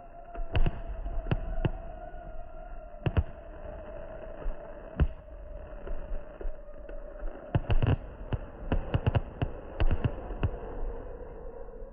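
Fireworks going off: sharp bangs at irregular intervals, several bunched close together in the second half, over a low rumble.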